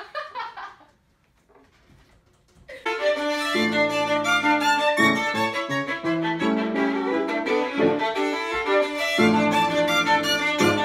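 A brief laugh, a pause, then about three seconds in a violin starts playing a bowed melody with piano accompaniment.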